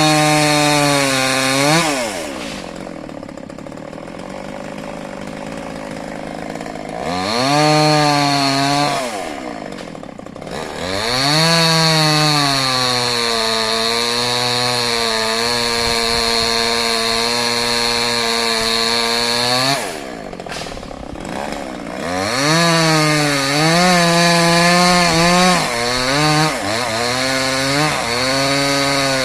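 Stihl two-stroke chainsaw cutting wood. The engine revs high and falls back toward idle several times. Through a long cut in the middle its pitch sags and holds lower under the load of the wood, then it revs up again near the end with a wavering pitch.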